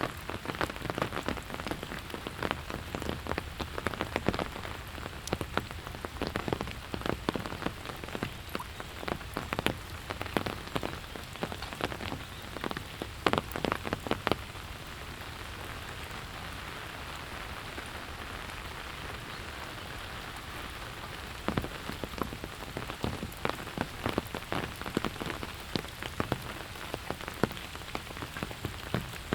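Steady autumn rain with many sharp drops striking close by. Halfway through, the close drops stop for about seven seconds, leaving only an even hiss of rain, then they start again.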